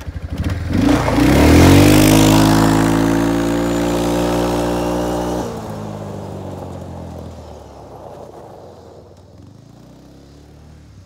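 ATV (four-wheeler) engine revving up as it speeds past and pulls away, its pitch rising and then holding steady. About five and a half seconds in the engine note drops off sharply, and the sound fades into the distance.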